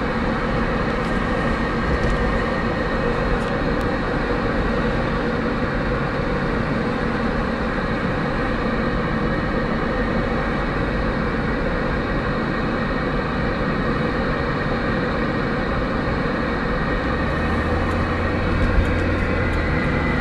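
Steady engine, tyre and wind noise from a vehicle riding along in traffic, with a deeper engine hum growing stronger near the end.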